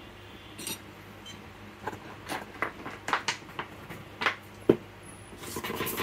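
Irregular light clicks and taps of small tools being handled on a repair bench, about a dozen over a few seconds, over a faint steady hum, with a short rush of noise near the end.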